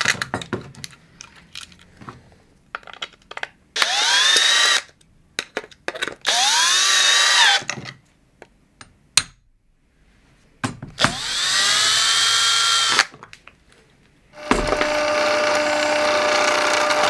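A drill motor whirring in three short bursts, each rising in pitch as it spins up and dropping as it stops, after a few light clicks of parts being handled. Near the end a pillar drill starts and runs steadily, boring into a white PTFE nut block.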